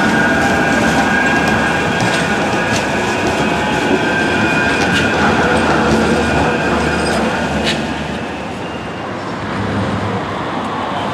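Bombardier M5000 light-rail tram passing close on street track: steady running rumble of wheels and traction gear with a thin high whine and a few sharp clicks. About eight seconds in it drops quieter, leaving a more distant tram approaching.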